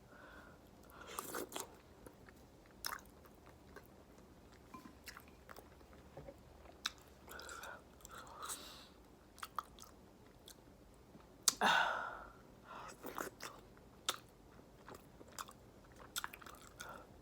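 Close-up mouth sounds of a person eating a seafood boil in sauce: chewing with scattered small clicks, and one louder mouth sound about two-thirds of the way through.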